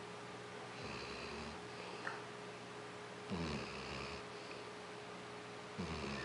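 Labrador retriever snoring heavily: three snoring breaths about two and a half seconds apart, the later two louder.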